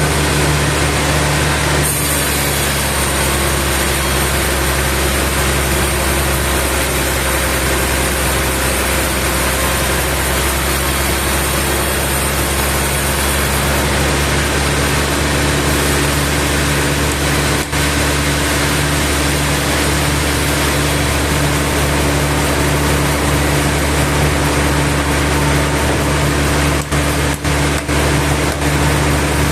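Sawmill machinery running: a steady engine drone with a constant low hum. About two seconds in, a brighter hiss joins it and then eases off around fourteen seconds in.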